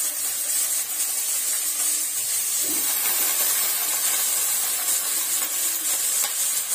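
Squeezed, shredded bamboo shoots sizzling steadily in hot mustard oil in a kadhai, being fried to take off their sourness.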